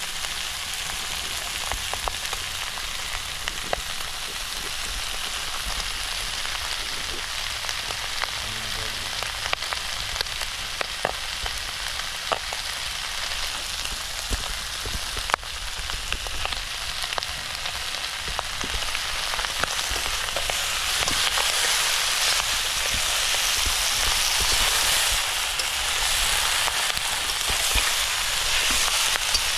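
Pork pieces frying in hot oil in a pan, a steady sizzle with scattered pops and crackles. The sizzle grows louder about two-thirds of the way through.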